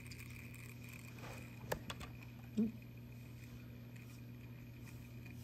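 Faint steady hum of an Auto Aqua Smart Stir magnetic stirrer spinning a test vial of reagent-dosed water. A sharp click comes a little under two seconds in, and a short low sound about half a second later.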